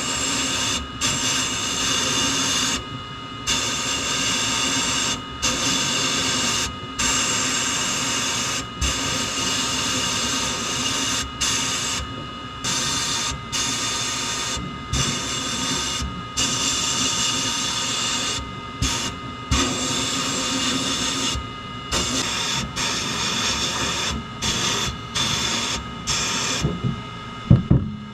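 Abrasive blast gun in a sandblasting cabinet hissing as it blasts a small pressed-steel toy part, in stop-start bursts broken by brief pauses every second or two as the trigger is let off. Near the end, a couple of knocks, then the blasting stops.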